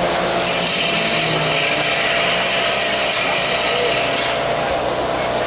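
Loud, steady hiss of pneumatic pit equipment during a race-car pit stop, starting about half a second in and cutting off sharply near the four-second mark. Under it runs the steady hum of the car and pit lane.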